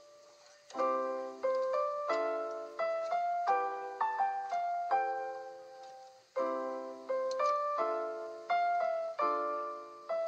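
Background piano music: a single held note, then from under a second in a slow run of chords and melody notes, each struck and left to ring and fade.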